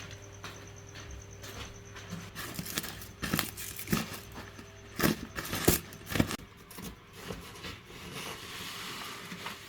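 Irregular knocks, clatter and rustling of objects being handled, loudest through the middle, over a faint steady hum.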